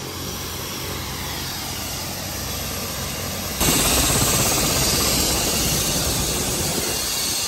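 Helicopter running close by: a steady engine-and-rotor noise with a low hum. About three and a half seconds in it jumps suddenly louder into a rushing noise.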